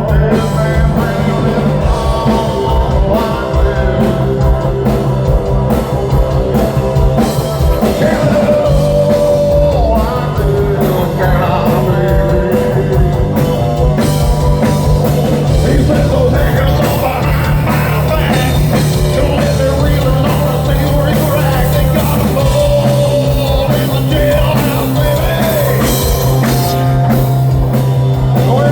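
A rock band playing loud, with a steady bass line and drums; a singer's voice comes in about eight seconds in.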